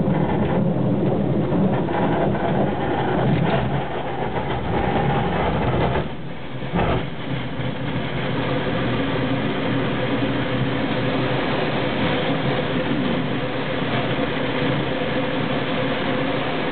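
Steady rumble and rattle inside a glider cockpit during an aerotow takeoff roll, as the glider rolls down the runway behind its tow plane and lifts off. It dips briefly with a knock about seven seconds in.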